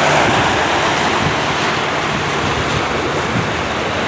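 Surf washing onto a stony beach, a steady rush of waves, with wind buffeting the microphone.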